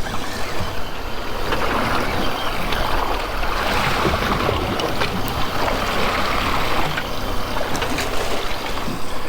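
Wind buffeting the microphone and sea water washing around a boat at sea: a loud, steady rushing noise that swells and eases every couple of seconds.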